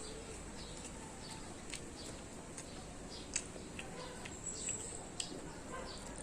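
Mouth sounds of someone eating: faint chewing with a handful of short, sharp lip-smack clicks scattered through the seconds.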